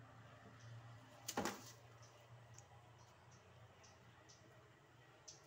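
Two roosters fighting on a concrete floor: mostly quiet with scattered faint clicks, and a brief loud double scuffle about a second and a half in as they clash.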